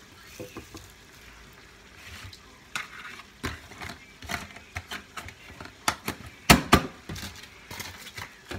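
Irregular clicks and light knocks of hands handling red shallots and setting them on a plate of papaya salad, the loudest two together about six and a half seconds in.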